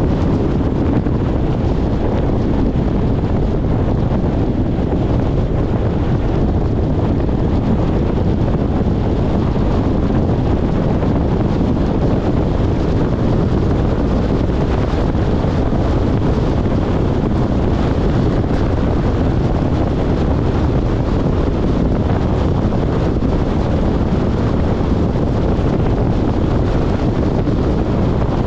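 Steady low rumble of a road vehicle driving at speed, mixed with wind buffeting the microphone, with no changes or distinct events.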